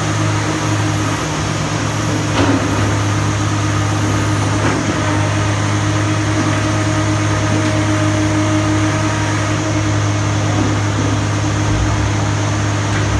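Komatsu PC300LC telescopic-arm excavator's diesel engine running with a steady low hum, and two short knocks about two and a half and five seconds in.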